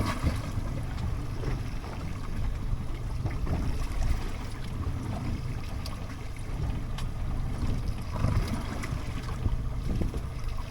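Wind buffeting the microphone and choppy seas washing around a small fishing boat: a steady low rumbling noise with a few faint knocks.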